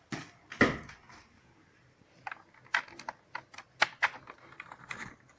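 Irregular light clicks and taps of plastic being handled as a mouse and USB plugs are connected. The clicks come more often in the second half.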